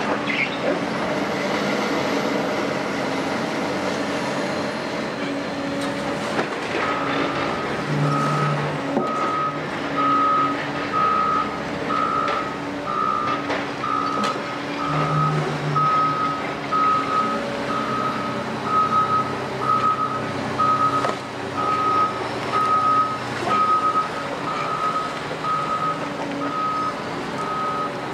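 Heavy-machine reversing alarm beeping at a single pitch about once a second, starting about seven seconds in. Under it, the diesel engines of a Doosan DX255LC-5 crawler excavator and a wheel loader run steadily, swelling briefly twice under load.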